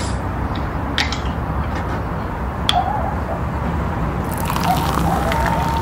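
A couple of light clicks, then from about four seconds in carbonated soda poured from a can over ice cubes in a glass, fizzing and gurgling as the glass begins to fill.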